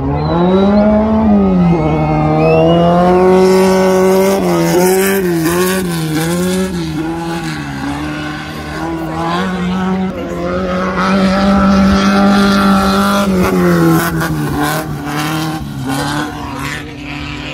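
Volkswagen-engined dirt racing buggy accelerating hard: the engine note climbs steeply at the start, then holds high at full throttle, wavering with short dips a few seconds in and easing down about fourteen seconds in.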